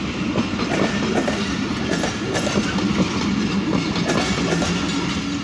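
Pakistan Railways passenger coaches rolling past close by, a steady rumble with the wheels knocking over rail joints again and again.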